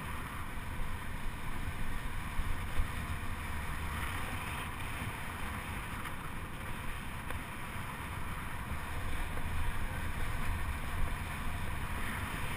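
Steady rush of wind on the microphone over a low rumble, as of a track bike's tyres rolling round the velodrome boards.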